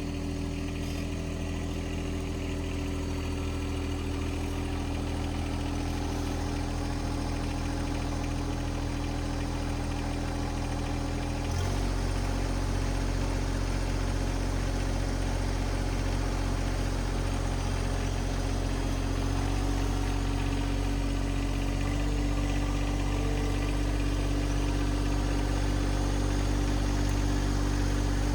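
John Deere 2025R compact tractor's three-cylinder diesel engine running steadily, stepping up a little in speed and loudness about twelve seconds in and again slightly later.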